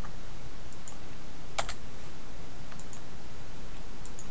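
A few separate keystrokes on a computer keyboard as a short entry is typed, the loudest about a second and a half in, over a steady background hiss.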